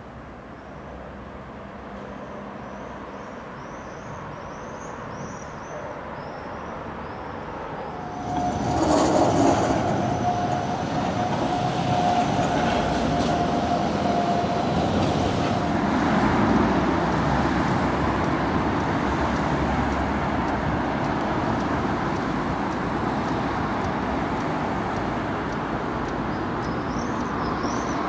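A city tram passes along street rails. Its sound swells through the first eight seconds, then grows loud with a steady whine that stops about halfway through, and a steady street rumble continues after that. Birds chirp in the first few seconds and again near the end.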